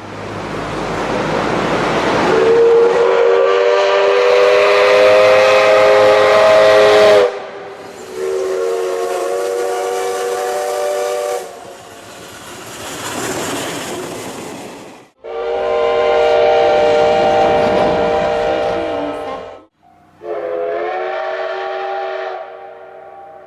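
Four separate Japanese steam locomotive whistle blasts, each a chord of several steady tones, cut one after another. The first sounds out of a rush of steam a couple of seconds in, and a stretch of steam hiss lies between the second and third blasts.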